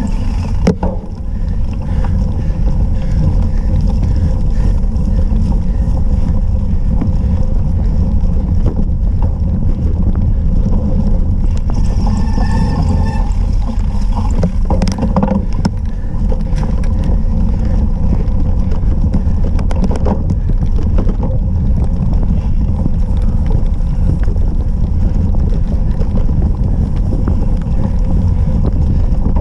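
Steady low rumble of wind buffeting an action camera's microphone, mixed with tyre and frame noise from a cyclocross bike rolling over bumpy grass and dirt, with a few faint knocks.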